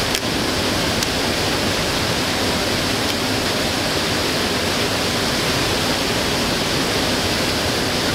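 Steady rushing of a waterfall spilling onto a cobble beach, even and unbroken, with a faint click or two near the start.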